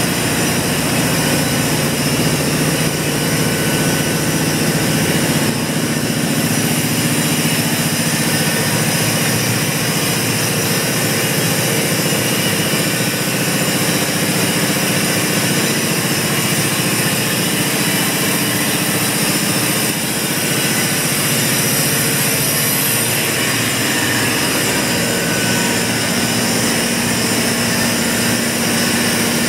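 Worthington OF5S-2 natural gas compressor unit running at a steady speed: a loud, even machinery din with a low hum.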